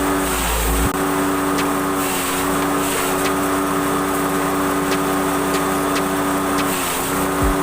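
Grass chopper driven by a motorcycle engine, running steadily at high speed. Its pitch dips briefly about half a second in and again near the end.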